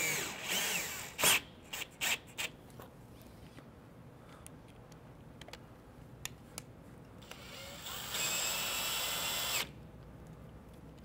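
Cordless drill/driver driving a washer-head screw through a vinyl soft-top stay pad into the top's bow. A few handling clicks and rustles come first, then the drill whines steadily for about two seconds near the end and stops suddenly.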